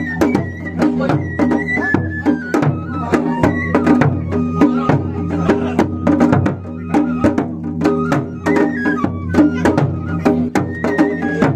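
Japanese festival drumming (matsuri bayashi): a large barrel-shaped taiko drum on a festival float struck rapidly with two sticks in a quick, continuous rhythm. A high flute plays a stepping melody over the drum.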